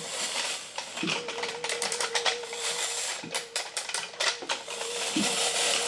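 Clockwork mechanism of a vintage Japanese wind-up tin robot clicking and ratcheting as its arm is spun to wind it. The clicks come in quick, uneven runs.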